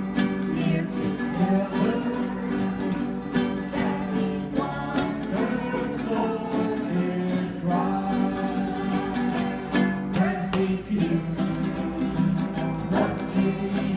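Music: a plucked guitar playing with a voice singing.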